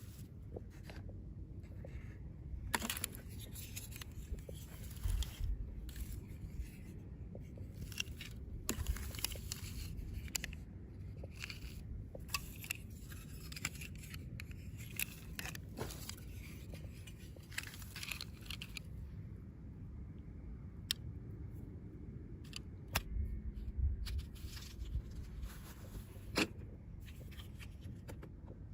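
Toy packaging handled by hand: plastic and paper rustling, tearing and cutting, with scattered sharp clicks and scrapes over a low steady hum.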